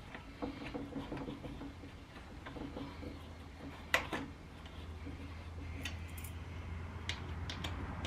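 Small metallic clicks and taps from a gate lock being handled and worked on a bus's entrance door. There is one sharp click about halfway through and a few quick clicks near the end, over a low steady hum.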